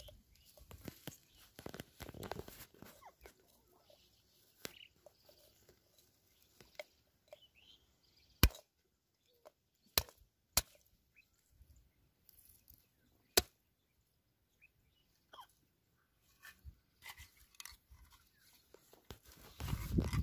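A wooden block striking a piece of brick in grass: four sharp knocks spread over several seconds, the first two coming about a second and a half apart. Faint rustling of hands in the grass comes before and between them.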